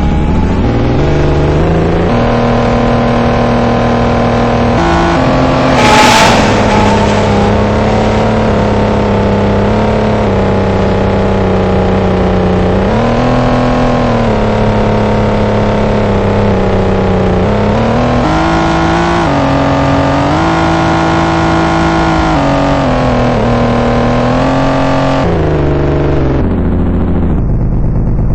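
A steady engine-like running sound whose pitch shifts up and down in steps every few seconds, with a brief loud hiss about six seconds in.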